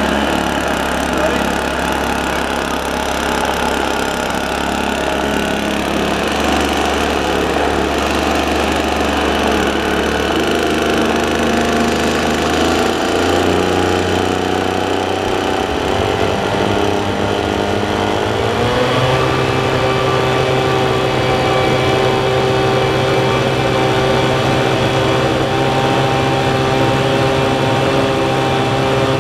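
Engine-driven leaf blower running, held against the intake of a homemade gas turbine to spin it up for starting. About sixteen seconds in, a whine rises and settles into a steady higher tone as the turbine spools up.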